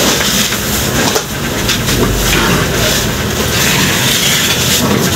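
Rustling and scraping of a large woven plastic sack as it is dragged and hoisted upright onto a platform scale, over a steady, loud din of market noise.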